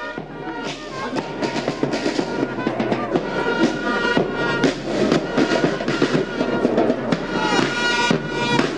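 Marching band music with drums and brass, full of frequent drum strikes. It cuts off suddenly near the end.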